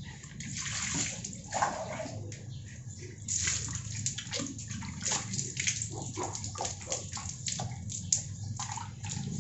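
Water splashing and dripping as a man rinses soap lather off his face with handfuls of water, a run of irregular splashes.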